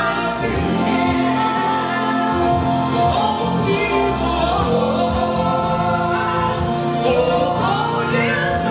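Live gospel worship music: a choir singing held, sliding notes over steady instrumental chords and bass, recorded slightly crackly through a camera's own microphone.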